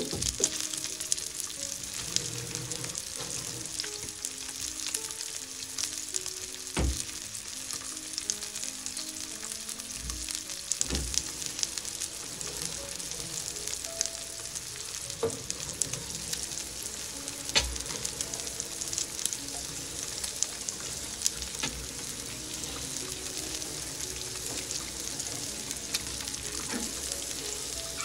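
Wagyu steak frying in hot rendered fat in a copper pan: a steady sizzling hiss with scattered crackles and a few louder pops.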